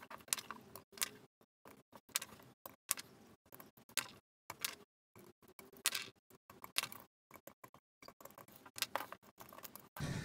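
Light, irregular clicks and taps, several a second, from a small screwdriver and fingers working on the exposed circuit board and plastic body of a stripped-down Canon EOS 1100D DSLR as ribbon cables and plugs are disconnected. A duller bump near the end.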